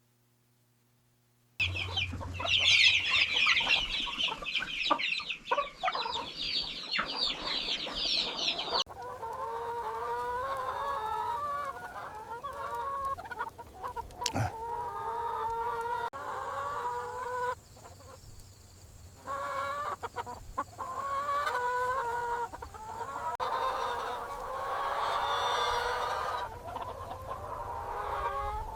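Plymouth Rock chickens calling. After a second or so of silence, a dense, high-pitched chatter of many birds lasts about seven seconds, then hens cluck and call over and over.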